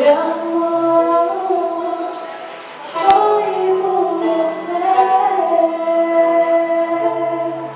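A woman singing a slow song over sustained instrumental backing, her notes held and gliding. There is a single sharp click about three seconds in.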